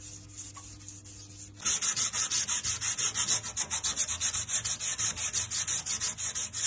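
Green abrasive scouring pad scrubbed rapidly back and forth over painted steel car panels, about eight strokes a second, scuffing the surface to key it for another coat of paint. The strokes are faint for the first second and a half, then loud.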